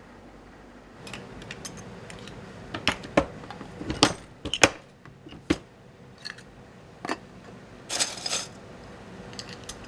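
Small stamped sheet-metal parts clinking and rattling as they are handled on a workbench and among a box of parts: a string of sharp separate clinks, loudest about four seconds in, and a longer rattle about eight seconds in.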